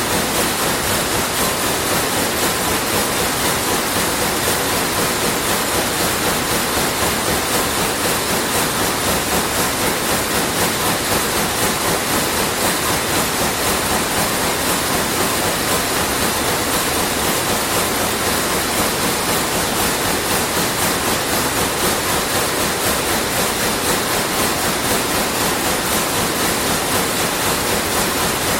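Sulzer weaving looms running: a dense, steady mechanical clatter with a rapid, even beat.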